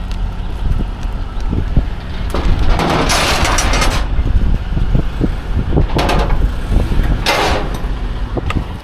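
Honda Civic being driven up onto a car-hauler trailer, its engine running under a low rumble, with three bursts of tyre noise as its wheels spin on the trailer deck, the longest about three seconds in.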